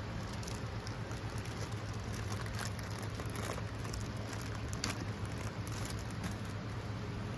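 Scattered light clicks and rustles, irregular and close, over a steady low hum.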